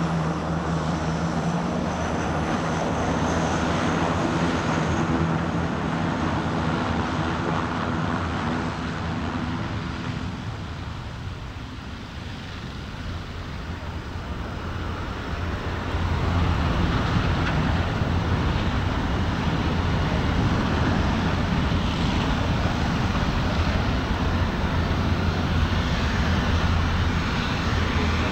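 Antonov An-26's twin Ivchenko turboprop engines running with a steady droning hum. It dips somewhat near the middle, then turns abruptly louder and rougher about two-thirds of the way through.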